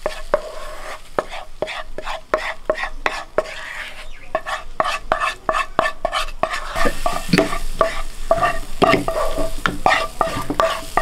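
A spoon scraping and knocking thick hot chilli-oil paste out of a cooking pan onto chopped raw mango in a plastic bowl, in many short quick strokes. From about seven seconds in the strokes grow fuller as the mango pieces are stirred through the paste.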